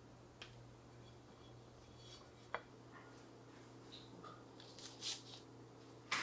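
Quiet kitchen room tone with a steady low hum, broken by a few light clicks and soft paper rustles as raw biscuit dough rounds are laid by hand on a parchment-lined baking sheet. The sharpest click comes right at the end.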